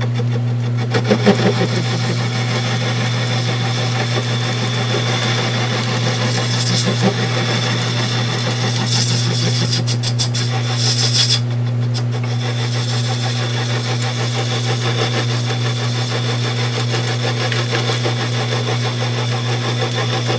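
1937 South Bend metal lathe running with a steady motor hum while a carbide-tipped cutter turns down 2-inch aluminum bar stock, the cutting noise rising and falling in short spells and briefly dropping out about halfway through.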